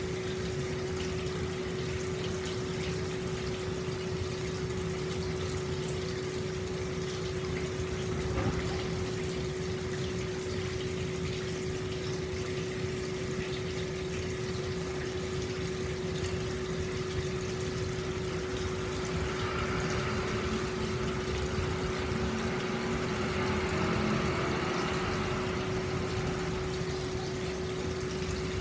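Hot-spring water pouring steadily into an open-air stone bath, a constant splashing rush with a steady low hum beneath it; the splashing grows a little louder and brighter about two-thirds of the way in.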